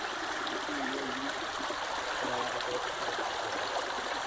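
Stream water rushing and gurgling steadily at a constant level.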